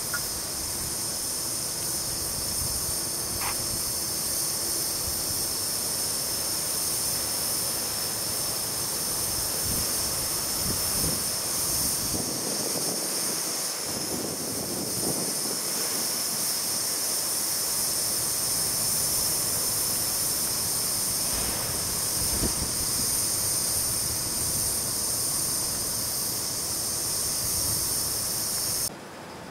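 Coal-fired Gauge 1 live-steam model of an LMS Royal Scot locomotive hissing steam steadily, a loud high hiss that cuts off abruptly near the end, over irregular low rumbling.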